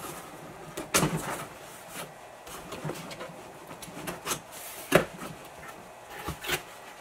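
Cardboard box flaps being pulled open and handled: a string of sharp knocks and rustles, the loudest about a second in and about five seconds in.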